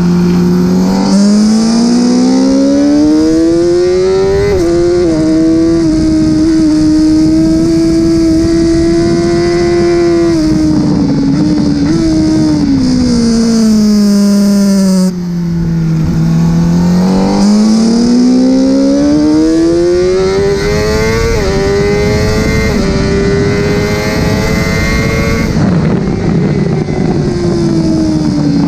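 Honda CBR1000RR-R Fireblade's inline-four engine, heard from on board at track speed. The revs climb with quick gear-change steps, hold high, then fall as the bike slows for a corner; this happens twice.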